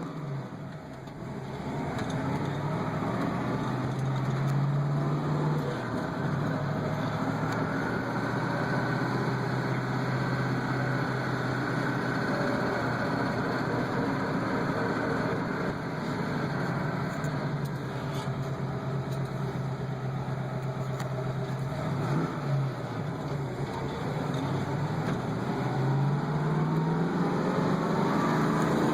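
A 331 V8 engine running while the vehicle is driven, with the tapping of a noisy valve lifter. The engine speed climbs near the end.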